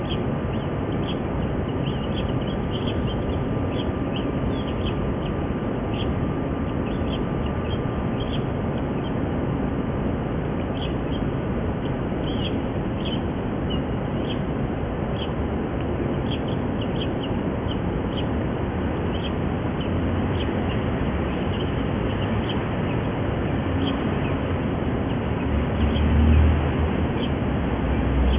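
Mallard ducklings peeping over and over, many short high calls, over steady background noise. A low rumble swells near the end.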